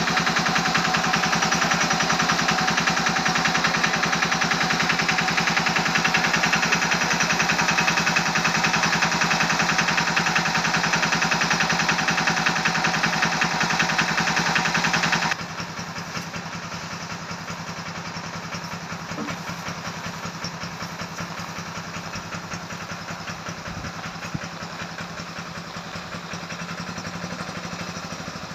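Tractor engine idling with a rapid, even firing beat. About halfway through it drops abruptly to a quieter, steady engine sound.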